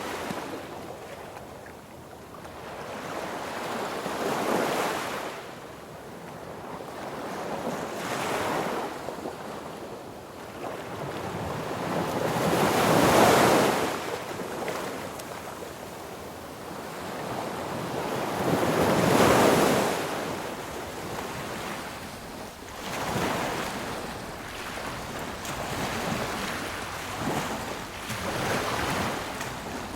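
Sea waves breaking on a beach: surf rising and falling in slow swells every few seconds, the two biggest breakers crashing about halfway through and again a few seconds later.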